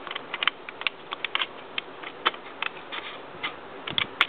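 Plastic Lego pieces of a brick-built padlock clicking and rattling as it is handled and put back together, irregular small clicks with a dull bump near the end.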